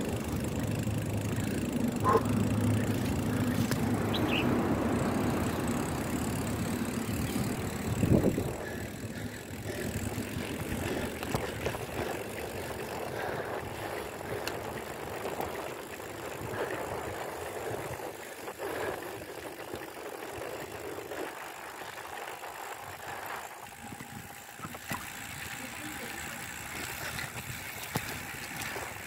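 Road bike being ridden on a rain-wet road: a steady rush of tyre hiss and wind on the microphone, louder for the first eight seconds or so, with a sharp knock about eight seconds in.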